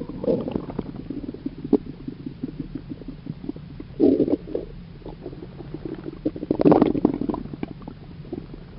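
Stomach rumbling: irregular gurgles and fine crackling, with a short burst about four seconds in and the loudest, longest gurgle near the three-quarter mark.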